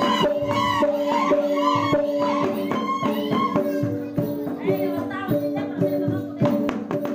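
Sumbanese gong ensemble playing a fast, even repeating rhythm, the gongs ringing on under each stroke, with voices singing over it, most strongly in the first half.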